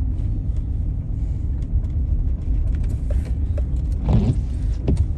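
Steady low rumble of engine and road noise heard from inside a car driving slowly, with a short pitched sound about four seconds in.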